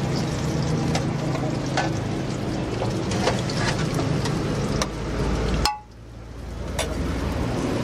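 Street food stall ambience: a steady noisy background with a low hum, and a few light metal clicks of a spoon against the iron griddle. The sound cuts out suddenly near the end and fades back in over about a second.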